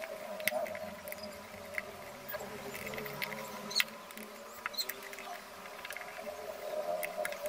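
Hand screwdriver turning screws into a plastic appliance housing: scattered light clicks and ticks of the tool and screws against the plastic, over a faint steady background sound.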